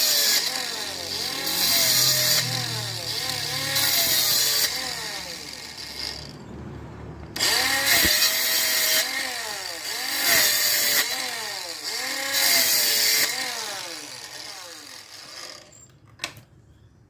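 Homemade cordless mini circular saw, an RS 895 DC motor driving a salvaged circular-saw gearbox, cutting wood: the motor's pitch repeatedly dips under load and recovers, with a rasping cutting noise. It pauses about six seconds in, starts again about a second later and dies away near the end.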